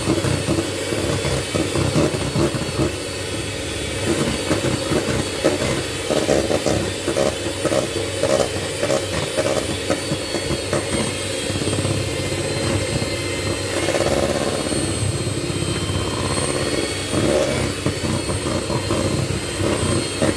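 Kenwood electric hand mixer running steadily, its beaters churning cake batter in a stainless steel bowl.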